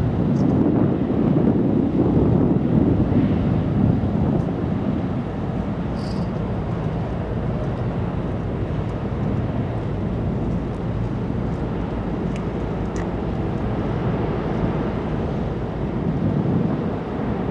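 A steady low rumble with wind noise on the microphone, swelling in the first few seconds and again near the end.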